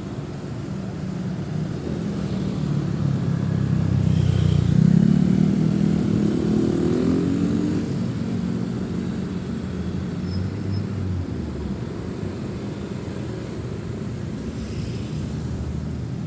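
Road traffic of motorcycles and cars running past. About four seconds in, one engine rises in pitch as it speeds up and passes close, the loudest moment, then the sound settles back to a steady drone of passing vehicles.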